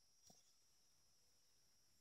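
Near silence, with one faint click about a third of a second in and a faint steady high whine underneath.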